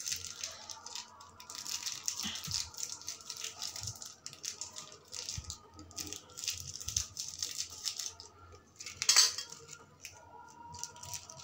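Maggi masala sachets crinkling and rattling as they are shaken out over a steel pot of broth, a dense run of small crackles and clicks, with one louder knock about nine seconds in.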